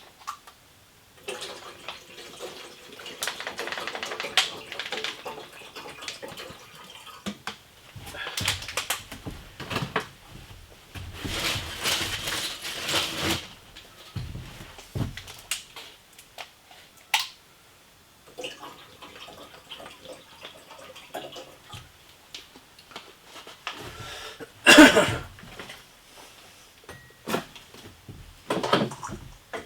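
Irregular handling noises in a small room: scraping and rustling stretches with scattered clicks and knocks, the loudest knock about 25 seconds in.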